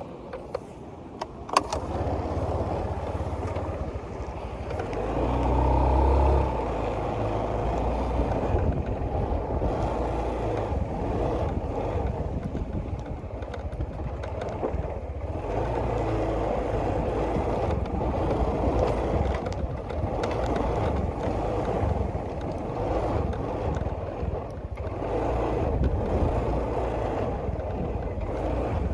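A few sharp knocks, then a boat's engine running steadily under way, a little louder about five seconds in.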